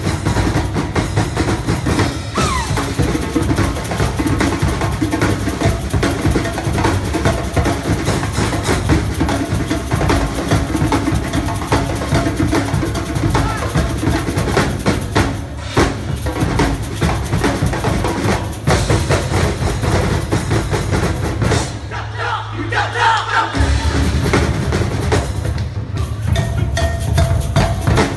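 Percussion ensemble drumming: dense, continuous strokes with deep bass drums under lighter hand-drum and wood-block hits. About 22 seconds in, the low drums drop out for a second or two and then come back in.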